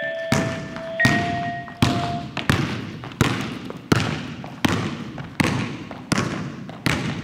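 A basketball dribbled on a hardwood gym floor, a steady bounce roughly every 0.7 seconds, each one echoing in the hall. A few bell-like musical tones ring over the first bounces and fade out.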